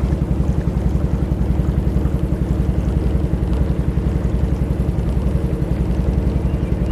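Engine of a Mokai motorized kayak running steadily under way, a fast, even pulsing drone.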